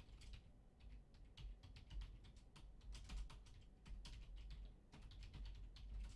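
Faint typing on a computer keyboard: a quick, irregular run of light key clicks.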